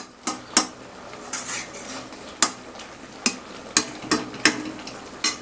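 A utensil stirring thick chutney in a pan, clinking sharply against the pan about eight times at an uneven pace, over a soft sizzle as the chutney cooks down.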